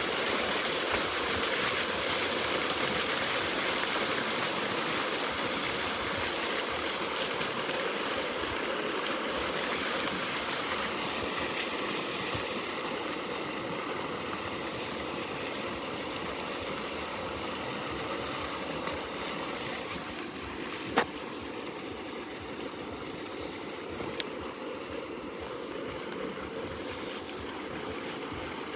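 Fountain jets rushing and splashing water in a steady stream of noise that slowly grows quieter, with one sharp click about two-thirds of the way through.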